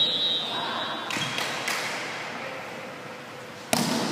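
A high squeak at the start, then one sharp smack of a volleyball being hit about three and a half seconds in, echoing in the gym hall.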